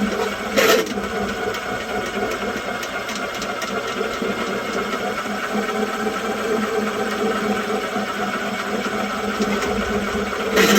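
Spartan 300 drain-cleaning machine running steadily, its motor turning the snake cable in a clogged sewer line. Two short, louder clatters come about a second in and again near the end.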